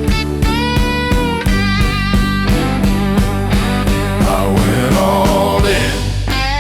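Slow electric blues music in an instrumental break: a lead electric guitar plays long, bending notes with vibrato over a steady drum beat and bass.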